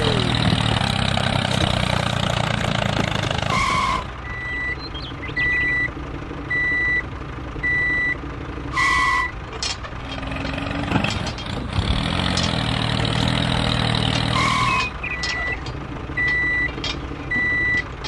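Tractor engine running steadily. About four seconds in it gives way to a reversing alarm, a high beep about once a second. The engine returns near the middle and the reversing beeps start again near the end.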